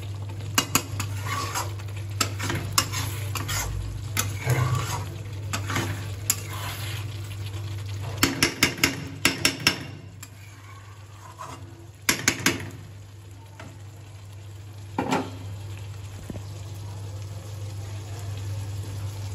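Metal spatula stirring chicken curry in a steel kadai, scraping and knocking against the pan with a quick run of taps in the middle, while the gravy sizzles. The stirring stops about two-thirds of the way through, leaving the sizzle over a steady low hum.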